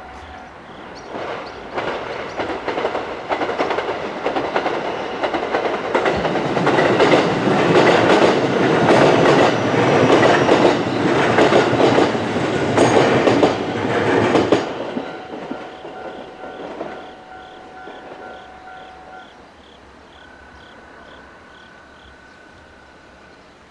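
A JR West 223 series electric train passing over a level crossing: it builds up, is loudest for several seconds with its wheels clacking over the rail joints, then dies away about two-thirds of the way through. Under it the crossing's warning bell rings on in an even, repeating ding, heard plainly once the train has gone.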